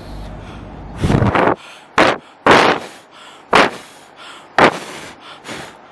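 Five puffs of breath blown straight into a Canon EOS M50's built-in microphone, picked up as wind buffeting. The first puffs are longer and the last ones short. The camera's wind filter is on but does not cut the noise at once: it only reacts once wind has already come in.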